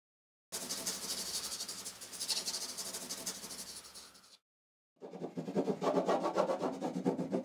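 Pencil scratching across a large sheet of drawing paper in quick, rapid strokes for about four seconds. After a brief silence comes a duller, lower rubbing and scratching on the paper.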